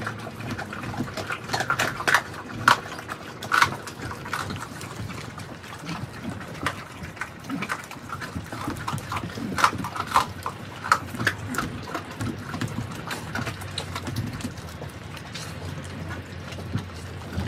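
Several mastiffs chewing raw turkey, bones included, with irregular crunches and snaps and a few louder cracks as they bite down.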